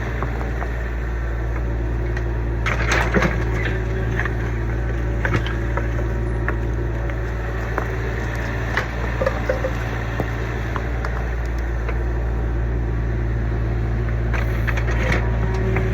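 Kubota U25 mini excavator's diesel engine running steadily while digging, with scattered knocks and cracks as the bucket breaks up and scrapes through old barn footing.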